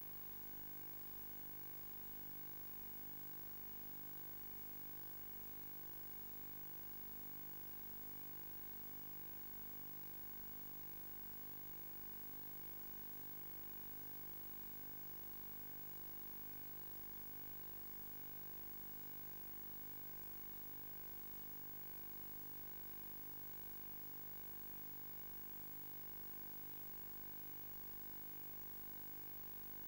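Steady static hiss with a faint electrical buzz, unchanging throughout: the noise of the FPV video link's audio channel rather than the plane's motor.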